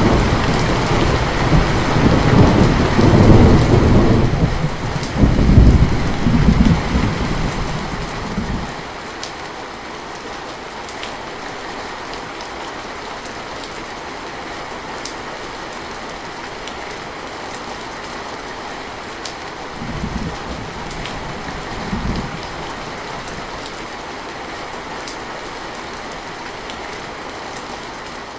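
Steady rain with a long rolling rumble of thunder that fades out about eight or nine seconds in. After that the rain continues alone, with scattered drop ticks and two brief low thunder rumbles about twenty seconds in.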